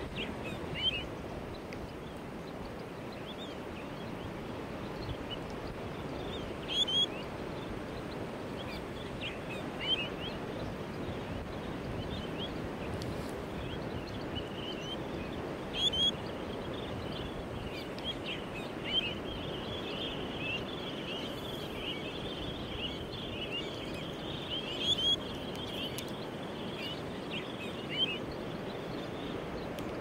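Heavy surf breaking steadily on a reef, with short high chirping bird calls scattered over it, a handful standing out louder and a busier run of them in the second half.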